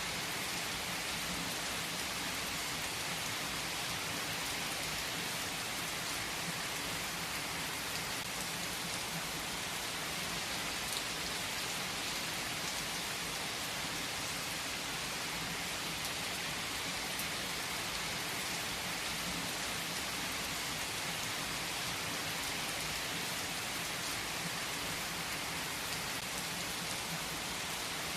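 Steady rain falling, an even hiss with a few faint clicks here and there.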